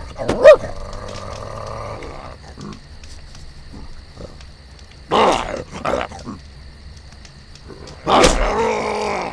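A cartoon bear's growls and roars in separate bursts: a sharp, loud one just after the start, two around five seconds in, and the loudest, longer roar from about eight seconds in.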